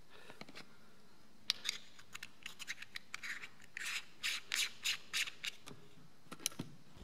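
A stack of screw-in 37mm macro close-up filters being handled, their metal rings rubbing and clicking together in a run of short scrapes through the middle, then a couple of clicks near the end as the stack is pushed onto a GoPro Hero 3.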